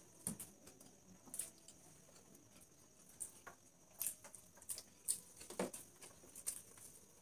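Faint, irregular little clicks and smacks of people eating chow mein noodles: slurping, chewing and fingers picking at the plates.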